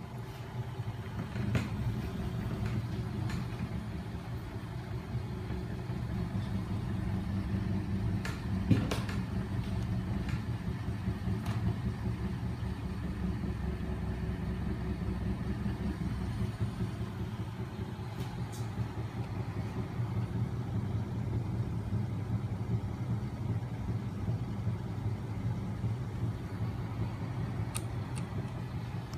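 Homemade magnet engine rig running: a small 12-volt electric motor spins its crankshaft, flywheels and magnets with a steady low mechanical hum. A few sharp clicks sound over it, the loudest about nine seconds in.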